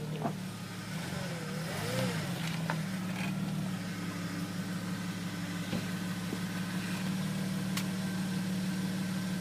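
Off-road vehicle's engine idling steadily, with a few faint knocks.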